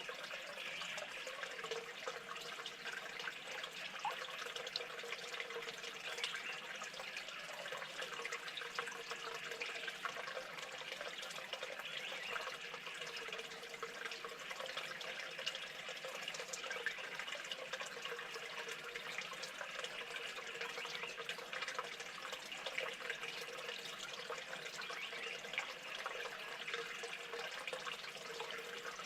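Steady trickling, splashing water with many small irregular drips and ticks.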